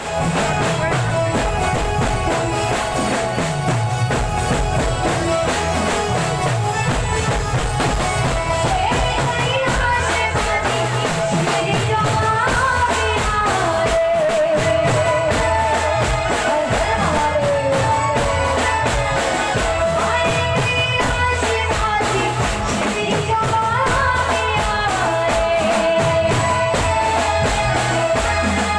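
Live Gujarati folk music: a wavering melody line over a steady, fast percussion rhythm, played loud and even throughout.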